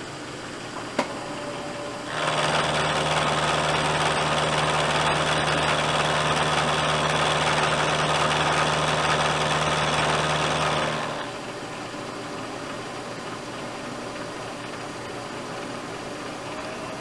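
Vertical milling machine running, its end mill cutting a flat into a round workpiece. From about two seconds in to about eleven seconds in the cutting grows much louder and stays steady, with a low hum under it, then drops back to the quieter running.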